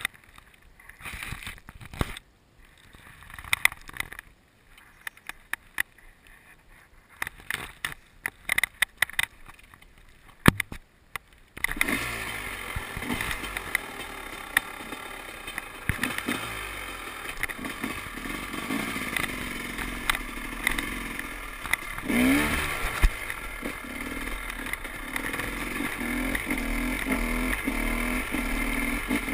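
Scattered clicks and knocks for the first ten seconds or so. About eleven seconds in, a KTM 300 XCW single-cylinder two-stroke dirt bike engine comes in suddenly and runs as the bike rides off, revving up and down and growing louder toward the end.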